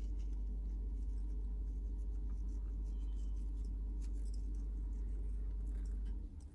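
Faint, scattered scratchy ticks of fingers pinching and sprinkling black seeds over dough balls, over a steady low hum that drops away about six seconds in.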